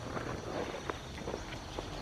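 Footsteps through undergrowth: irregular short crackles and rustles of someone walking.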